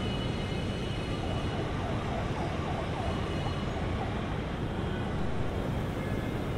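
Steady city traffic rumble with a faint wailing siren about two seconds in.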